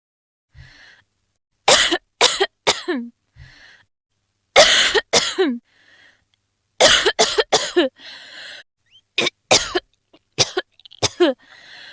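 A woman coughing in about five short fits of two to four coughs each, the voiced end of each cough falling in pitch, with audible breaths drawn in between the fits.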